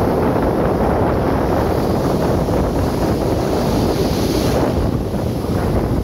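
Small, fast surf breaking and washing foam over a sandy beach, heard through heavy wind buffeting on the microphone. A brighter hiss of breaking water comes about four seconds in.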